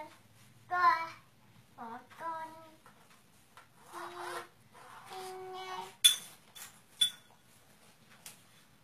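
A toddler's wordless vocalizing in several short, high-pitched calls, then two sharp clacks about a second apart.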